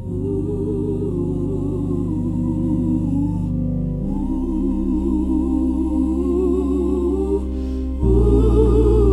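Gospel choir singing sustained, wavering lines over steady low held chords. The chord shifts about four seconds in, and the music grows louder near the end.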